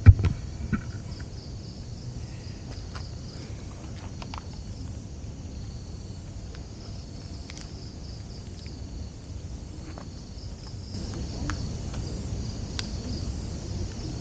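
Insect chorus, crickets trilling steadily in a high band and growing louder about eleven seconds in, over a low rumble. A sharp knock comes right at the start, with a few faint clicks after.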